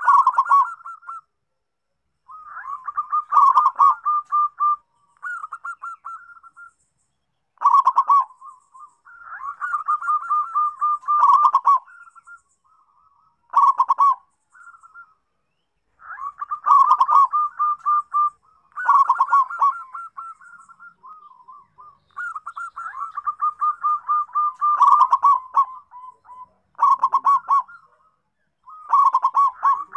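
Zebra dove (perkutut) singing: phrase after phrase of rapid staccato cooing notes, each phrase a second or a few seconds long with short pauses between. This is the lure song used to set a reluctant perkutut singing.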